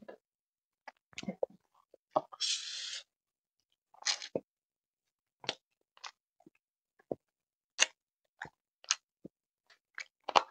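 Close-up mouth sounds of eating grilled chicken by hand: wet chewing, lip smacks and sharp clicks as meat is bitten and sucked off a chicken leg, with one short hissing slurp about two and a half seconds in.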